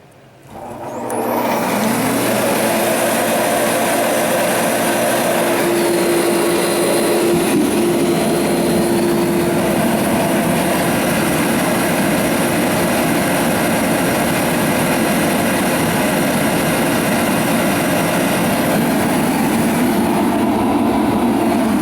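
Sears forced-air torpedo heater switched on: its blower motor spins up over about two seconds with a rising whine, then runs steadily with a loud rush of air and a steady hum.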